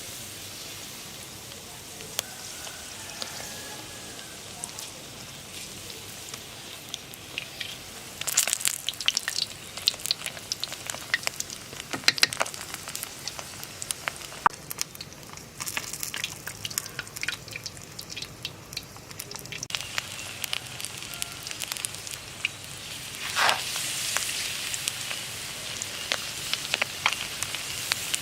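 Batter-coated loach fish deep-frying in hot oil: a steady sizzle full of sharp crackles and pops, with louder spells of sputtering about a third of the way in, around the middle, and again near the end.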